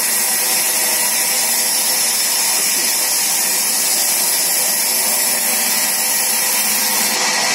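Sawmill band saw running steadily: a continuous machine whine with a strong high hiss.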